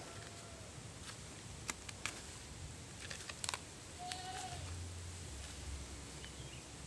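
Dry bamboo leaves and twigs crackling underfoot, with a few sharp snaps in the first half. About four seconds in comes one short animal call.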